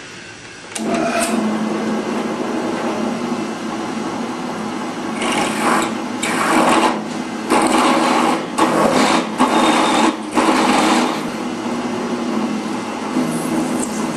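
Drill press motor starting about a second in and running steadily, set to about 1170 rpm. From about five seconds in, a letter-F twist drill cuts into a metal block in about six short loud bursts, then the press runs on without cutting.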